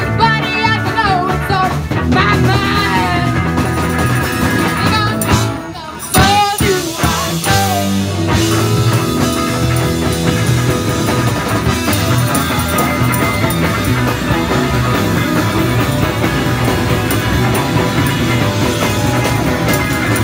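Live rock band with electric guitars, drums and a lead singer playing through a PA. The sound drops briefly just before six seconds in, then the full band comes straight back in.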